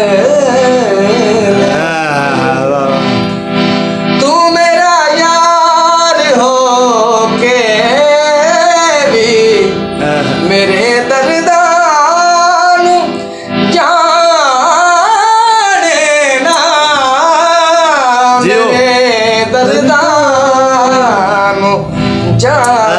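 A man singing a Punjabi song in long, wavering, ornamented phrases, accompanied by a harmonium holding steady tones underneath.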